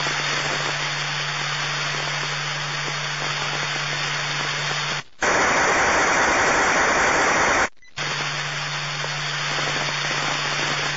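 Police scanner radio static: a steady hiss over a low hum, with no voice on the channel. The hiss cuts out briefly about five seconds in and again near eight seconds, and is louder between the two drop-outs.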